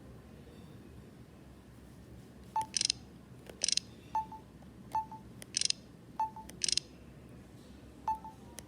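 A mobile phone's short electronic key beeps, each followed by a brief high, fluttering chirp, repeated five or six times at irregular intervals from about two and a half seconds in.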